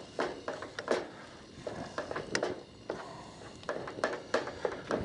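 Wooden spatula scraping and knocking against a pot as leftover rice is stirred and fried on a camp stove: irregular short clicks and scrapes over a low hiss of frying.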